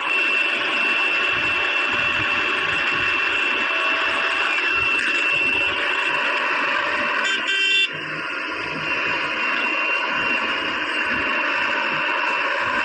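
Heavy machinery running: a backhoe loader and trucks at work, with a steady high whine over the engine noise. A short vehicle horn sounds about seven and a half seconds in, after which the noise drops a little.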